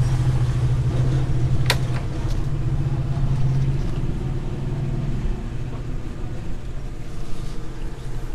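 A steady low rumble that eases off somewhat in the second half, with one sharp click about two seconds in.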